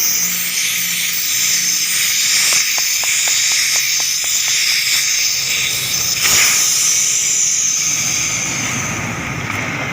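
Compressed air hissing hard out of an air compressor tank's open drain plug, blowing out the water that has collected in the tank. This water-filled tank is what has left the compressor weak on air. A quick run of small ticks comes about two and a half seconds in.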